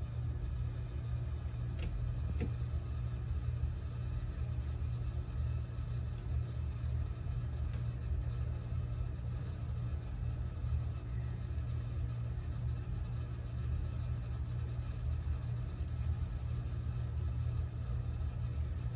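A steady low hum with a cricket chirping over it in quick, evenly pulsed trills, starting about two-thirds of the way in and coming and going.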